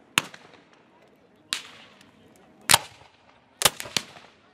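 Five sharp shots from black-powder rifle muskets firing blank charges, irregularly spaced about a second apart with the last two close together, each trailing off in a short echo.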